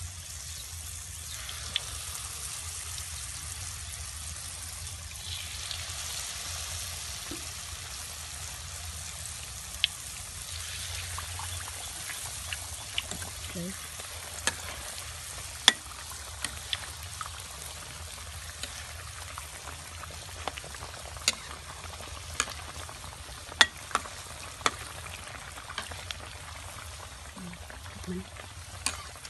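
Battered banana pieces deep-frying in a wok of hot oil: a steady sizzle, with sharp clicks of a metal ladle against the wok as the pieces are turned.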